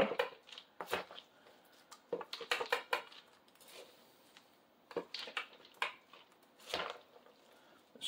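A spoon scooping sticky, gelatin-soaked birdseed out of a plastic bowl and dropping it into a seed-cylinder mould: scraping, crunching seed and light clinks in several short bursts with quiet gaps between.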